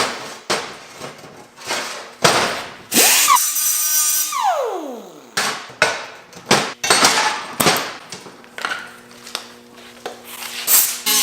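Angle grinder switched on briefly: it spins up, runs for a second or two and winds down, with sharp metal knocks and clanks around it.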